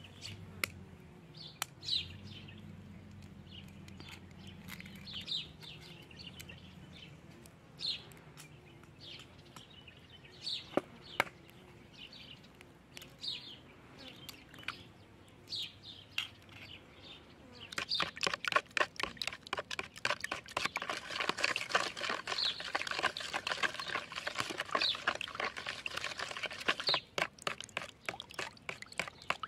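Small birds chirping on and off. A little past halfway, a metal spoon starts beating egg and yeast batter in a plastic bowl: a fast run of clicks and sloshing that carries on to the end and is the loudest part.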